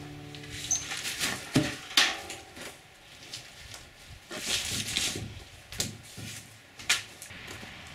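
Plastic vacuum hoses and a cyclone dust-separator bucket being handled and fitted together: scattered knocks and clicks, with a stretch of rustling hose about halfway through.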